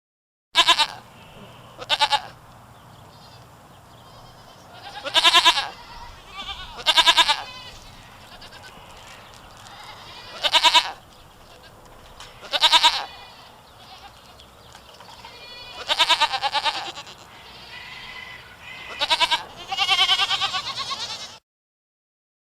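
Goats bleating, about nine loud, quavering calls a second or two apart, a few of them drawn out to about a second. The sound cuts off abruptly near the end.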